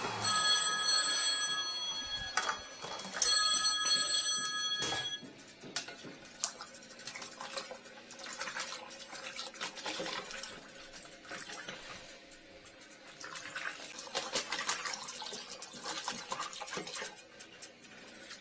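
A telephone ringing in two bursts of steady electronic tones, each about one and a half to two seconds long, in the first five seconds. After that, a tap running into a washbasin with small knocks and scraping as gloved hands work at the drain.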